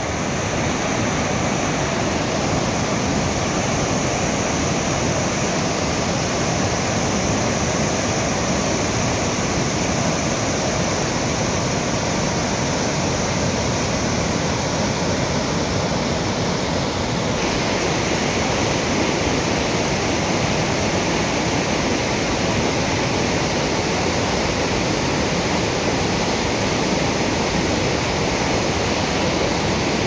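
Rushing white water of a fast mountain river and waterfall: a steady, even rush of water, its character shifting slightly a little past halfway.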